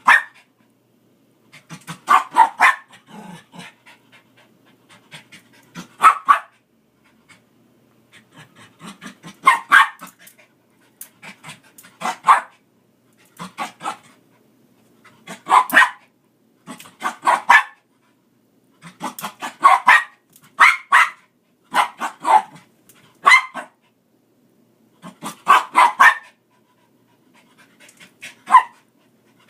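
A dog snapping at dust, breathing hard and barking in short, rapid bursts that come back about every two seconds.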